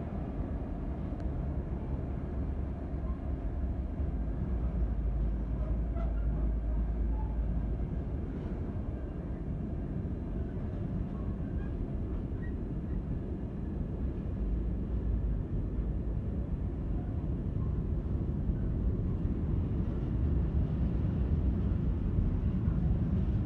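Container freight train rolling past: a steady low rumble of loaded container wagons on the rails, growing a little louder near the end.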